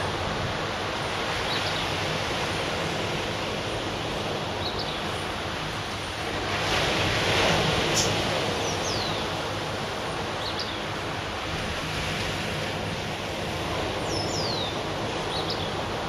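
Waves breaking and washing up a sandy beach, a steady surf wash that swells louder about seven seconds in as a bigger wave comes in. A few short, high, falling chirps sound faintly over it now and then.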